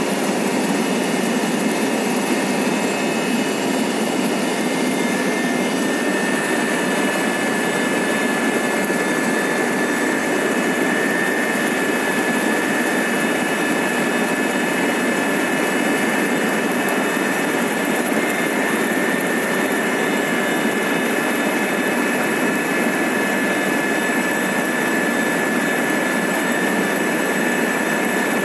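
Helicopter in flight heard from inside its cabin: a steady, loud din of engine and rotor with a thin, high, steady whine over it.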